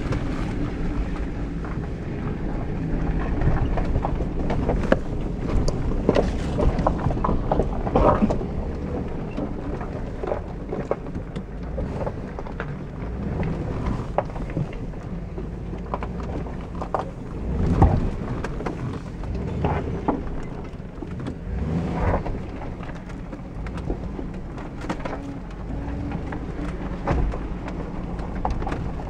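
Jeep Grand Cherokee WJ crawling over a rocky dirt trail, heard from inside the cabin: a steady low engine and drivetrain rumble with frequent knocks and rattles from the body and suspension as the tyres go over rocks and ruts. One heavy jolt about two-thirds of the way through stands out.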